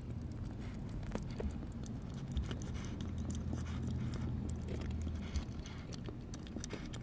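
Kittens chewing and licking at food, with scattered small wet clicks.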